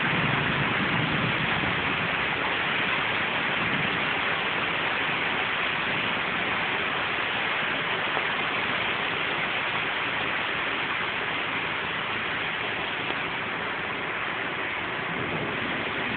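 Heavy rain pouring down steadily, an even rushing hiss with no thunder.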